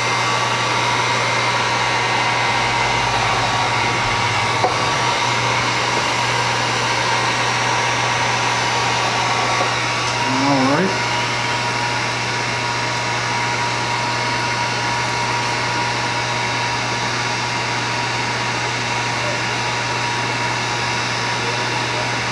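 Handheld electric heat gun running steadily: a constant rush of blown air with a steady hum.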